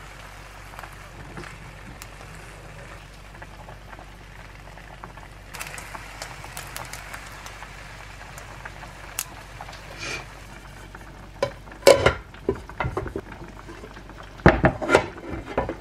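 Egg and fried rice frying quietly in a nonstick pan while a wooden spoon folds the omelet, with light scrapes and taps. About twelve seconds in, and again near the end, come loud knocks and clatter as the pan and a plate are handled and the omelet is turned out.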